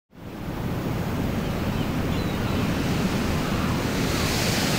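Steady rushing noise of surf and wind, fading in over the first half second and then holding even.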